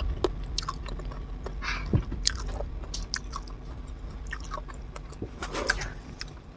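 Close-miked chewing and wet mouth smacks of a person eating, small scattered clicks with a louder cluster near the end.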